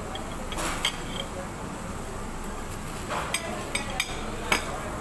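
Cutlery and dishes clinking at a meal table: about five short, sharp clinks, one about a second in and a cluster in the second half, over a steady background noise.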